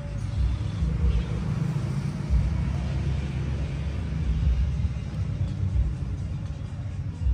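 Low, uneven rumble with a faint hiss above it.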